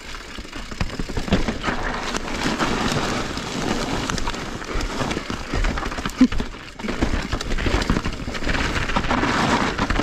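Mountain bike rolling fast down a leaf-covered dirt trail: tyres crackling through dry leaves and dirt, with the bike rattling over bumps and wind rumbling on the microphone.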